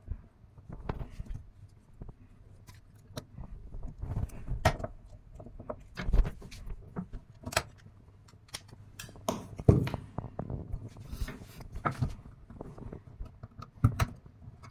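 Irregular clicks, knocks and short scrapes of hard plastic being handled and worked, the sharpest knock about ten seconds in, as old PVC pipe is worked loose from a fitting.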